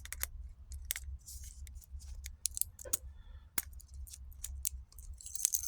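Keys and a gun lock being handled: irregular small metallic clicks, rattles and scrapes as a key is worked into the lock and turned to open it.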